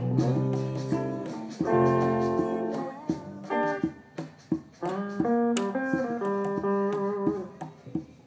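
Guitar playing held chords and notes with sharp hand-drum hits from congas among them.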